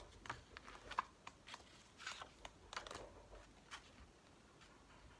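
Sheets of scrapbooking paper being handled on a cutting mat: faint rustles, slides and light taps of paper, scattered and irregular, dying down near the end.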